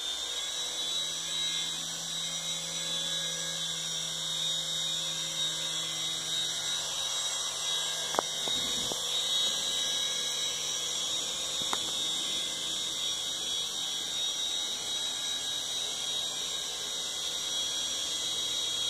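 Toy remote-control helicopter's small electric rotor motors running with a steady high-pitched whine. There are two light clicks, about eight and twelve seconds in.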